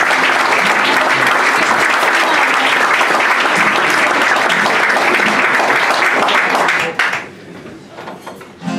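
Audience applauding, a dense, steady clapping that dies away about seven seconds in.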